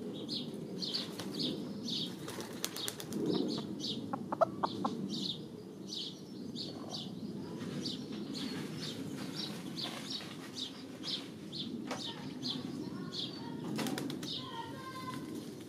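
Hen dust-bathing in dry soil and bark mulch: feathers rustling and wings shaking, with scratching in the dirt. A high ticking repeats about three times a second.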